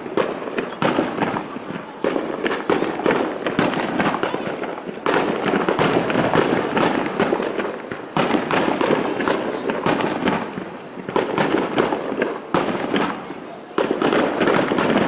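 Starmine aerial fireworks display: rapid volleys of shell bursts and bangs with dense crackle, coming in surges every few seconds.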